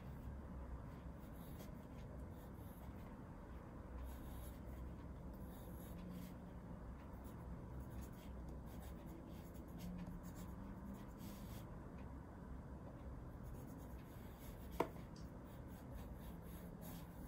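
Pencil scratching on paper in faint, irregular drawing strokes, drawn with the non-dominant left hand. One sharp click near the end.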